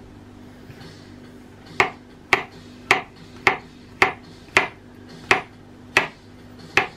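Chef's knife slicing button mushrooms on a hard cutting board: about nine sharp knocks of the blade on the board, a little under two a second, starting about two seconds in.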